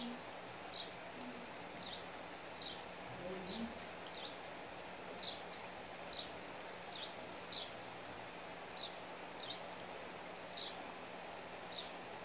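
A bird repeatedly gives short, high chirps, each dropping in pitch, about one every second or less at uneven intervals, over a steady background hiss.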